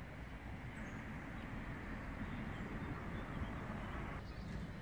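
Faint outdoor background noise with a low rumble, and a few short, faint bird chirps.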